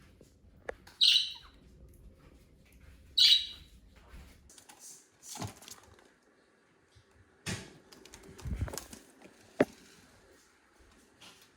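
Budgerigar giving two short, loud, shrill calls about one and three seconds in, followed by a few scattered knocks and rustles.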